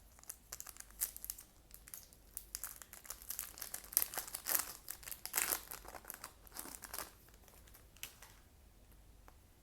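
Trading-card booster pack wrapper crinkling and crackling in irregular bursts as the pack is opened by hand, dying away near the end.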